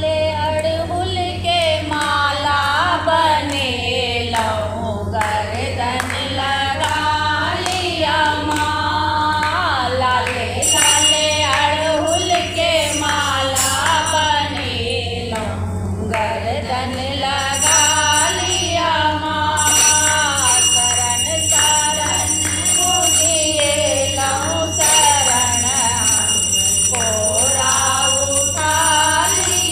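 A group of women singing a devotional folk song in unison, unaccompanied except for hand-clapping to the beat, over a steady low hum. From about ten seconds in, a high thin ringing tone comes and goes.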